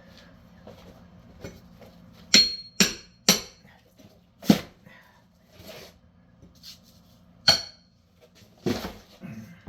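Hand hammer striking a steel bar driven into an old timber door frame: six sharp metal-on-metal blows with a brief ring, three in quick succession about two to three seconds in, then single blows spaced out toward the end.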